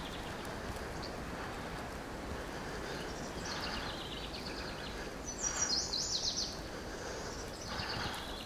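Small songbirds singing short, rapid, high trills over a steady faint background hiss. The loudest trill comes a little past the middle, with softer ones just before it and near the end.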